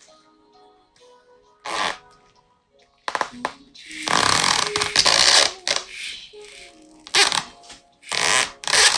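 Several loud bursts of rustling noise, the longest lasting over a second about four seconds in, over faint background music.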